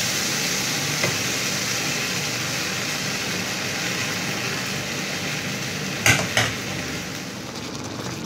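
Onion-and-flour sauce with chicken stock sizzling in a hot frying pan while a wooden spatula stirs it, binding the sauce; the hiss fades slowly. Two short knocks about six seconds in.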